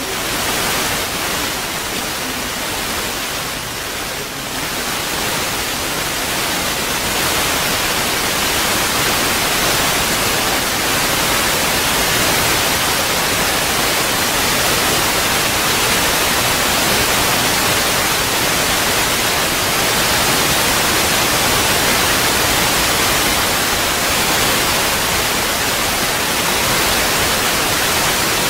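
Steady, loud static-like hiss with no rhythm or tone, a little louder after about seven seconds.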